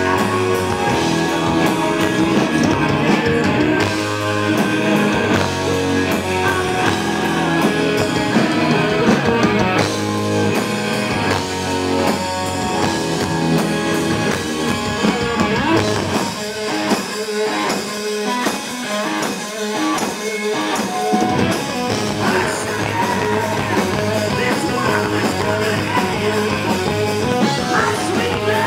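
Live rock band playing, with distorted electric guitar, drum kit and vocals, recorded on a small handheld camcorder's built-in microphone. A little past the middle, the bass drops out for a few seconds, leaving choppy rhythmic guitar, before the full band comes back in.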